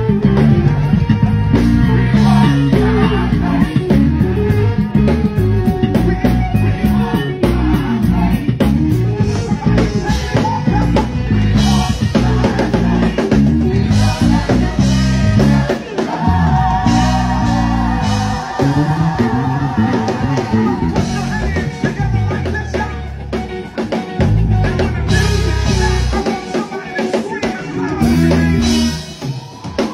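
Live gospel band playing: keyboards, organ, electric guitar, bass and a drum kit, with singing in the mix. The bass and drums drop out briefly a couple of times before coming back in.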